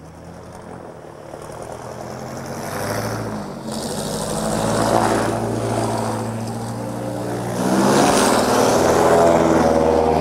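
Airboat's engine and big air propeller droning as it approaches across the marsh, growing steadily louder and loudest near the end, its pitch rising once about eight seconds in.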